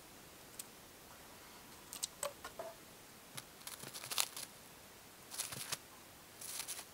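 Eurasian jay pecking and tugging at a sandwich in a plastic bag, the plastic crinkling and rustling in short irregular bursts of clicks.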